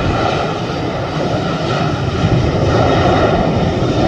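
Jet airliner's engines running loud and steady, a whine over a broad rush.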